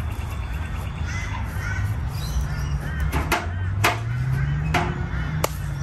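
Repeated bird calls over a low steady rumble, with several sharp knocks as a bucket is handled and set down on the grass.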